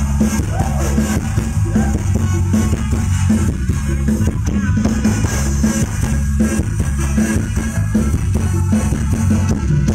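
Loud live band music through a large outdoor concert PA, with a heavy bass and a steady drum beat, picked up on a phone microphone in the crowd.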